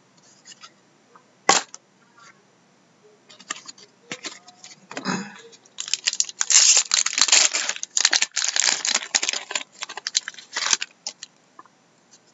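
Trading card pack being handled and opened: scattered clicks and taps, a sharp snap about a second and a half in, then about five seconds of crinkling and tearing of the pack wrapper starting around six seconds in.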